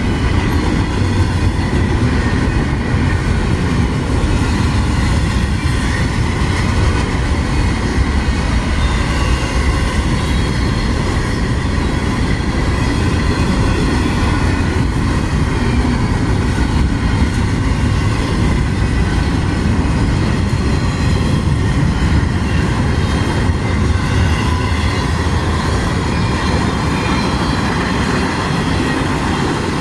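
Long freight train's cars rolling past close by: a steady, loud rumble and clatter of steel wheels on the rails, with faint high steady tones over it.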